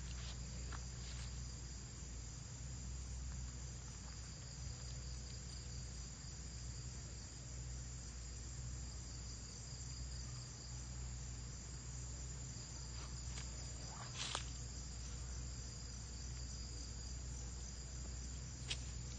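Steady high-pitched insect chorus of crickets or cicadas, with a couple of short sharp clicks about two-thirds of the way through and near the end.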